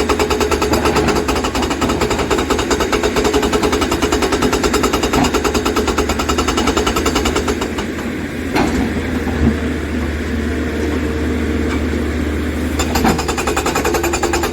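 Hydraulic rock breaker on an excavator pounding stone in a rapid, steady rattle over the low hum of the diesel engine. The hammering eases for a few seconds past the middle and picks up again near the end.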